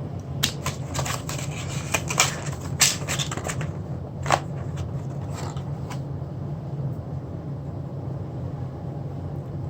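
A run of sharp clicks and taps from handling packaging and the phone during unboxing, bunched in the first four seconds with one more about six seconds in, over a steady low hum.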